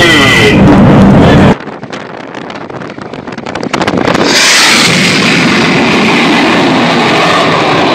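Fighter jet making a low, fast pass: a loud, steady roar builds about four seconds in and holds. Before that, a loud roar from another clip cuts off abruptly about a second and a half in, giving way to wind buffeting the microphone.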